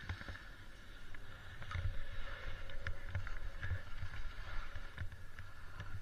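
Wide freeride skis (Osgo Spencer, 110 mm waist) sliding and scraping over snow on a descent: a steady hiss broken by scattered sharp clicks and low irregular thuds.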